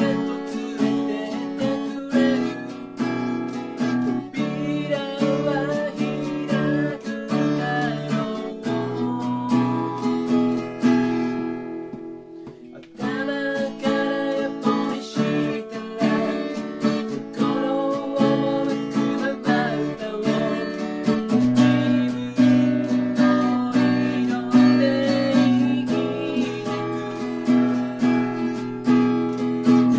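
A man singing while strumming an acoustic guitar in a steady rhythm. Near the middle the playing dies away to a single ringing chord for about a second, then the strumming and singing resume.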